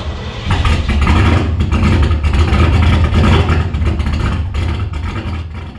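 A Mazda RX-7's 13B rotary engine running loudly, its exhaust pulsing rapidly, fading out near the end.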